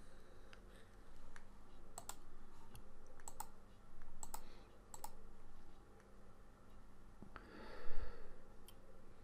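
Computer mouse clicking: sharp clicks in quick pairs, four pairs in about three seconds, over a faint steady electrical hum. Near the end comes one louder breathy rush lasting under a second.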